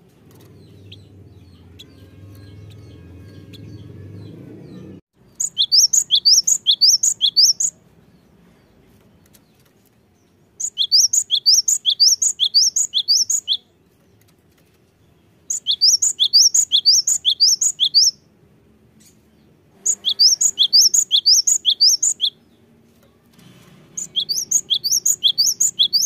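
Cinereous tit (gelatik batu) singing: five bursts of rapid repeated high, upward-sweeping notes, about five a second, each burst lasting two to three seconds with short pauses between.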